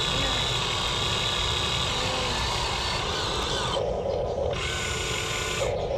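Electric motors and gearboxes of a radio-controlled excavator whirring steadily as its boom and bucket move. The sound changes abruptly a little before four seconds and again near the end.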